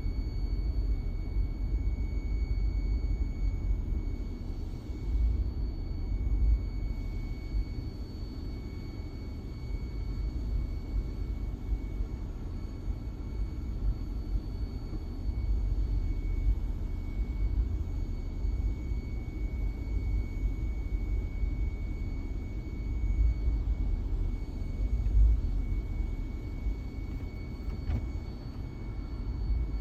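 A 2010 GMC's engine running with a steady, slightly uneven low rumble and a faint steady high whine. The engine has a P0300 random-misfire code.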